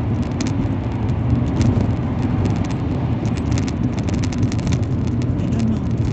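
Steady road and engine noise inside a moving car's cabin, with a light, irregular rattle of something loose, which the occupants trace to a candle holder knocking in a bowl.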